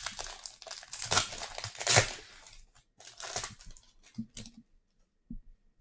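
Foil wrapper of a baseball card pack being torn open and crinkled, loudest about two seconds in, followed by a shorter crinkle and a few soft taps as the cards are handled.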